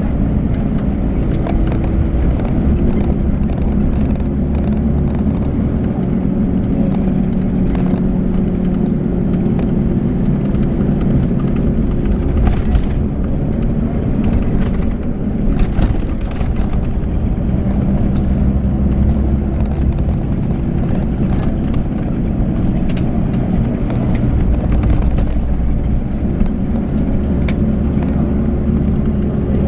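Volvo B12B coach's 12-litre straight-six diesel running steadily with road noise, its engine note shifting a couple of times as speed or gear changes. Scattered light clicks and rattles sound over it.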